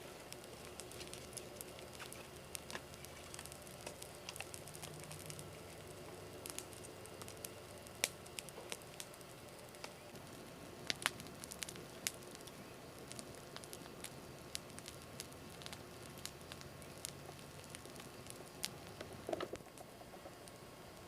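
Campfire crackling, with irregular sharp pops and snaps over a faint steady hiss.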